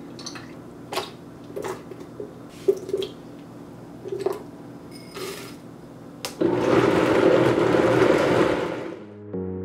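Ingredients such as frozen banana pieces and blueberries drop into a plastic blender jar with a series of short knocks. Then a Vitamix TurboBlend VS blender motor runs loudly for about two and a half seconds, starting about six seconds in and winding down near the end.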